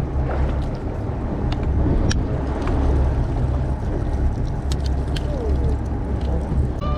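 Steady low rumble of the fishing charter boat's engine running while the boat sits over the fishing spot, with a few sharp clicks scattered through it.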